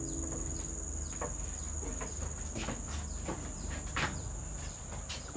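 Insects droning steadily at a high pitch in dense tropical vegetation, with short falling chirps repeating about once a second.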